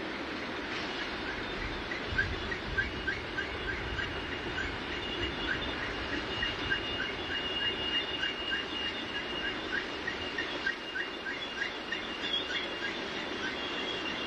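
Freight cars rolling past on steel wheels with a steady high-pitched squeal and short squeaks repeating about twice a second, over a continuous low rumble.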